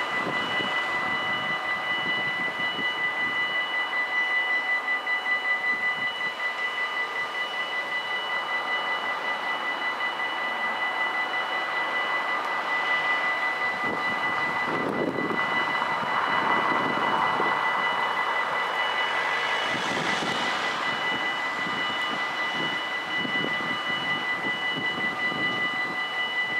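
Dutch automatic level-crossing bells ringing continuously, a steady high electronic ringing. A passing vehicle's rush swells and fades under it about fifteen to twenty seconds in.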